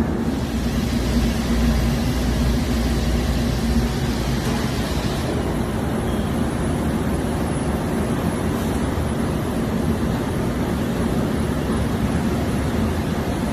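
Okuma GP-26T CNC cylindrical grinder running with a steady machine hum and rumble. A brighter hiss sets in at the start and drops away after about five seconds.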